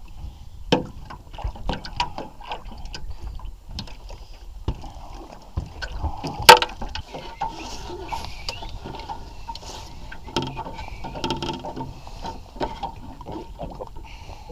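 Clatter and knocks of handling aboard a small fishing boat, with one loud knock about halfway through, and water splashing and sloshing at the hull beside a big pike held on a rope.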